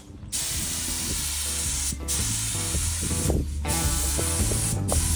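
Compressed-air paint spray gun hissing steadily, run at about 40 psi. It cuts out briefly a few times as the trigger is let go between passes. Background music with a steady bass comes in underneath about halfway through.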